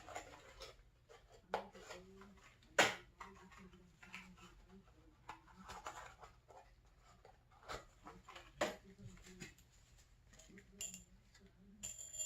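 Scattered metal clinks and knocks of hand tools and hardware (bolts, washers, lock nuts) being handled while fitting snowmobile front suspension spindles to the control arms, with a sharp knock about three seconds in and another near nine seconds.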